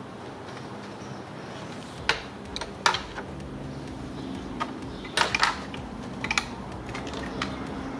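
Sharp plastic clicks and rattles of wiring-harness connectors and clips being handled and worked loose in a car's engine bay: a handful of separate clicks, a small cluster about two seconds in and another about five seconds in.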